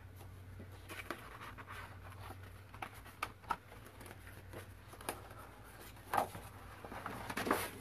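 Sheets of paper being handled on a tabletop: soft rustles and light taps, with a couple of louder rustles about six seconds in and near the end.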